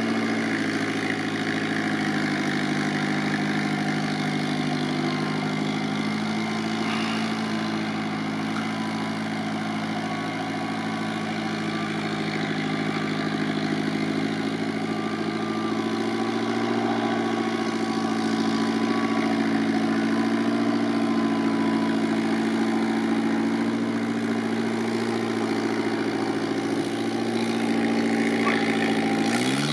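Off-road 4x4's engine running at low, fairly steady revs, its pitch wavering slightly, then revving up sharply near the end.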